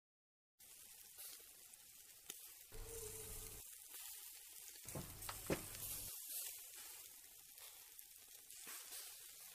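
Faint sizzle of raw pork steaks and sausages going onto a small charcoal grill, starting about half a second in, with a few sharp clicks of metal tongs on the grate, the loudest a little past halfway.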